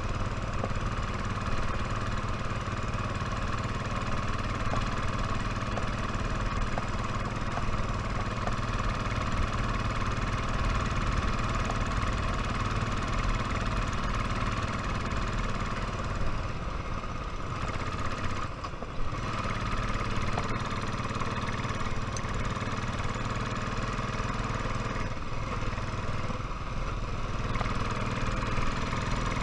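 Royal Enfield motorcycle engine running steadily under way, with a brief drop in level about two-thirds of the way through before it picks up again.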